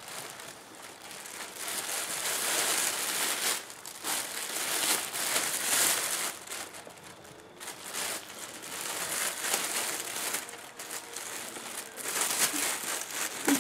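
A shopping bag crinkling and rustling as folded clothes are packed into it, in irregular stretches with short pauses between them.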